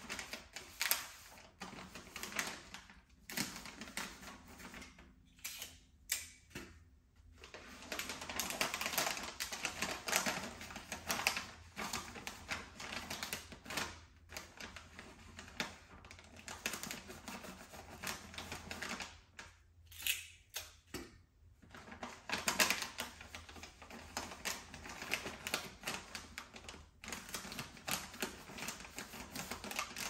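Gift-wrapping paper being handled and folded, with dense, irregular crackling and rustling that pauses briefly a few times.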